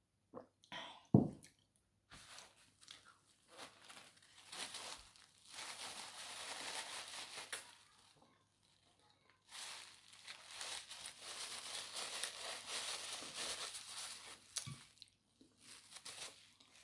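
A paper napkin rustling and crinkling as it is handled and pressed and wiped across the face, in two long stretches. A single sharp knock comes about a second in.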